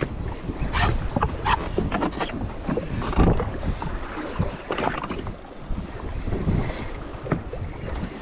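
Water slapping and splashing against the hull of a jet ski floating at sea, in irregular bursts.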